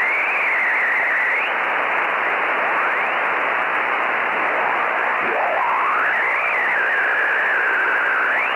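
Shortwave radio static: a steady hiss with a whistle that glides up and wavers back down, twice.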